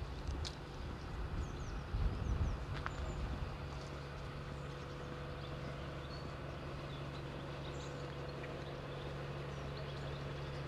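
A double-decker bus's diesel engine running with a steady low drone as it approaches, growing slightly louder. Small birds chirp faintly throughout, and there is a low rumble about two seconds in.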